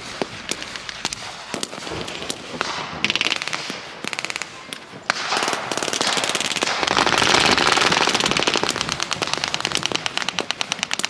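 Blank-firing gunfire: scattered single rifle shots, short rapid bursts about three and four seconds in, then sustained rapid automatic fire, many shots a second, from about five seconds in.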